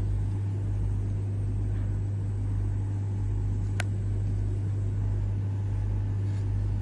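A steady low hum throughout, with a single sharp click a little after the middle, in keeping with pliers working a clasp wire.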